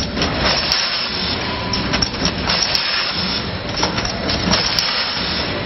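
Rotary shampoo pouch filling machine running: a steady mechanical clatter, with a sharp click about every two seconds.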